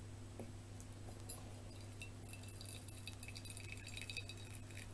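Thin stream of hot water from a ceramic teapot trickling into a shallow porcelain plate, with faint, light tinkling and a small clink about a second in.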